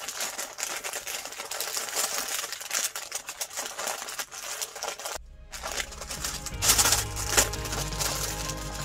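Paper rustling and crinkling as a white paper bag is folded and smoothed flat by hand. About five seconds in it cuts off and background music with a steady bass line comes in, with more paper handling over it.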